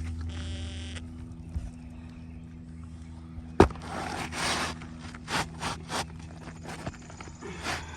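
A new asphalt shingle being worked into place on a roof: one sharp knock, then several short scraping rasps of shingle against shingle, over a steady low hum.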